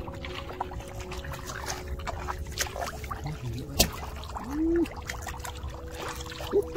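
Shallow muddy water splashing and trickling as a person wades through a tidal mudflat, with scattered small clicks and one sharp click just before halfway. A steady hum runs underneath.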